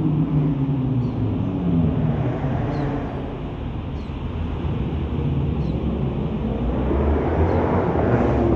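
Cars passing on a street: the engine note of a passing car fades away in the first second or two, then a low road rumble grows louder near the end as another vehicle approaches.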